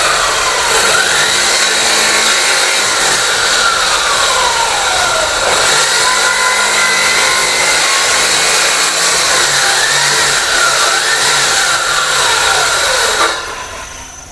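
Handheld electric circular saw cutting along a wooden boat plank. Its motor whine drops in pitch several times as the blade bogs down in the wood and then picks back up. About a second before the end it is switched off and spins down.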